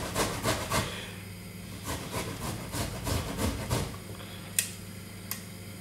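Fresh ginger being grated on the fine side of a metal box grater against a wooden chopping board: quick rasping strokes that thin out and stop, followed by two short sharp clicks near the end.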